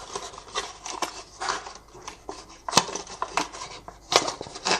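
Hands handling a diecast toy's cardboard and plastic retail packaging: scraping, rubbing and small clicks, with two sharp taps, one near the middle and a louder one near the end.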